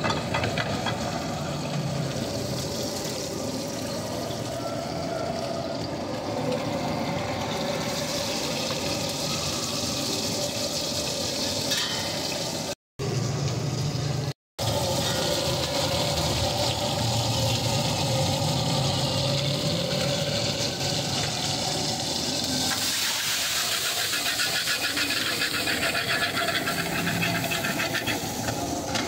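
Steady rushing of a stall's gas burner under a steel frying pan of hot oil, with ladle clinks, briefly cut off twice near the middle. About three-quarters of the way through, a louder hissing sizzle sets in as vegetables fry in the oil.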